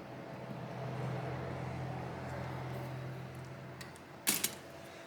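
A steady low electrical hum with a light hiss that stops a little before four seconds in, followed by a single sharp tap.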